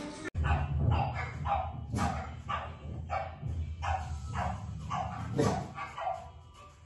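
A dog barking repeatedly, about two barks a second, over a low rumble.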